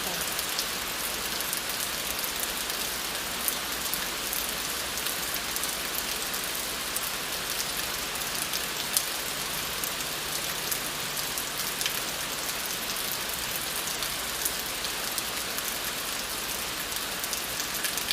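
Steady rain falling on hard surfaces, with scattered sharp drop ticks.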